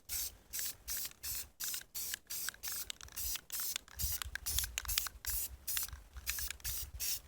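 Aerosol can of self-etching primer spraying in short hisses, about three a second: a light first coat going on.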